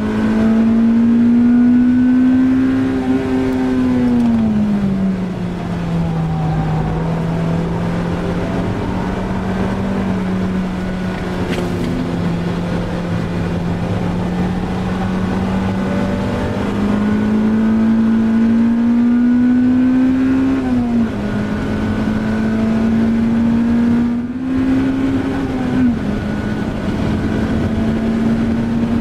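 Honda Civic Type R EP3's 2.0-litre four-cylinder engine heard from inside the cabin at speed. Its note falls about four seconds in and holds low, then climbs again in the second half, dropping sharply twice, as at gear changes.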